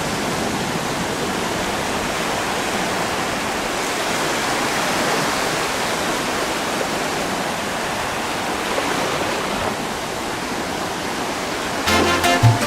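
Surf on a sandy beach: a steady hiss of waves washing ashore that swells a little midway. Music starts suddenly near the end.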